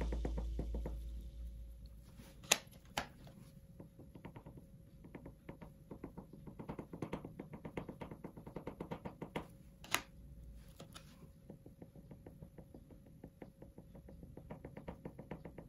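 Mungyo soft oil pastel sticks tapping and scratching short dashes onto drawing paper: a fast, uneven run of faint ticks, with a few louder knocks, two near the start and one in the middle. Background music fades out during the first second or two.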